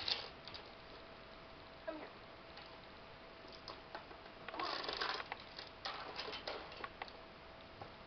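Light clicks and rattles of a puppy's chain leash and claws on a bare floor around an upright vacuum cleaner that is not yet running, with a short rustling noise about halfway through.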